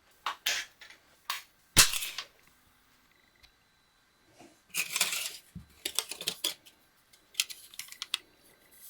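A single shot from an HW95 spring-piston air rifle in .25 calibre about two seconds in: a sharp crack with a brief ring as the pellet hits a stack of four thin aluminium plates. It is followed by a clatter and a scatter of light metallic clicks.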